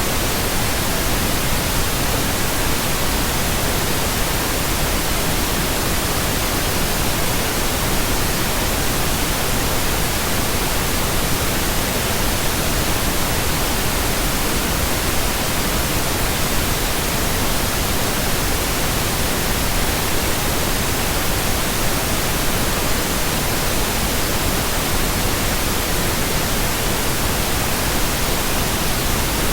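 Steady synthesized pink noise: an even, unchanging hiss spread across the whole range, with no tones or breaks.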